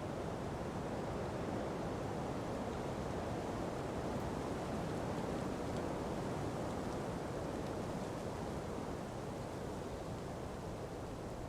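Ocean breeze blowing through palm trees: a steady, even rushing of wind that swells a little in the middle and eases slightly near the end.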